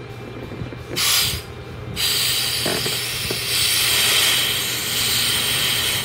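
Can of AC refrigerant gas sprayed onto an air-conditioner thermostat: a short hiss about a second in, then a longer steady hiss of about four seconds. The gas chills the thermostat so that it trips.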